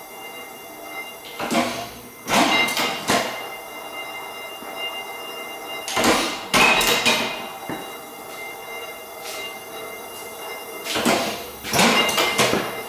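Hydrogen-fuelled reproduction Otto & Langen atmospheric free-piston engines running. About every five seconds a short cluster of sharp bangs and metallic clatter comes as an engine fires and its piston rack works the drive gearing, three times in all, over a faint steady hum.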